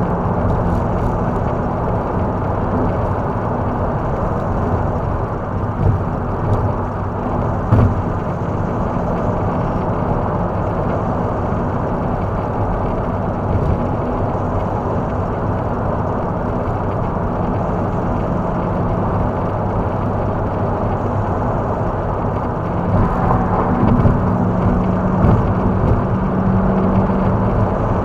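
Cadillac CTS-V's supercharged V8 heard from inside the car while cruising at highway speed: a steady low engine drone under continuous tyre and road noise. The engine note grows a little louder from about 23 seconds in.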